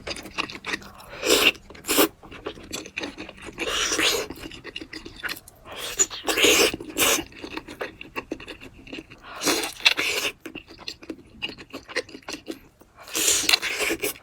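Close-miked eating sounds: wet chewing and crunching mixed with the scraping of utensils against a dish, in irregular bursts.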